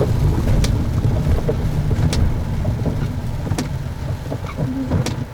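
Car driving along a road: a steady low rumble of engine and tyre noise inside the cabin. A sharp click comes about every one and a half seconds, and the rumble eases near the end.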